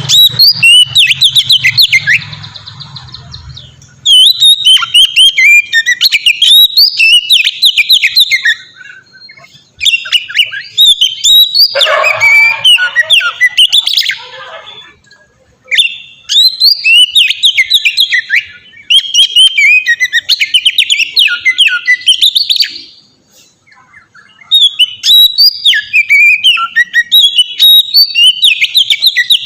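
Oriental magpie-robin (kacer) singing loud, rapid, varied whistled phrases in about five long bouts with short pauses between them, the full open song called 'ngeplong'.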